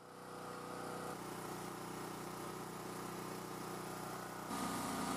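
Portable generator engine running steadily at idle, a continuous even hum; its tone shifts slightly about four and a half seconds in.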